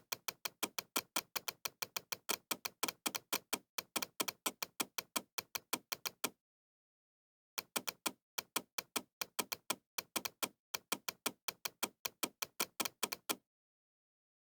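Rapid mouse-click sound effect added by the Bandicam screen recorder, at about five clicks a second in two runs, with a silent gap of about a second in the middle. The clicks stop about a second before the end.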